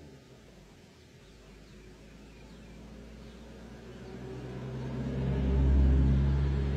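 A safari jeep's engine growing louder as it drives up and passes close by, loudest about six seconds in, then fading.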